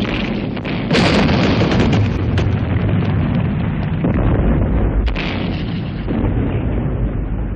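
Artillery bombardment: guns firing one after another over a continuous low rumble, with sharp blasts about a second in and about five seconds in.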